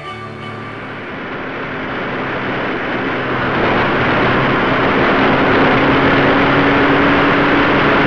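Motorcycle riding heard from a helmet camera: wind rush and engine sound growing louder over the first few seconds, then holding steady with a steady drone. Music fades out about a second in.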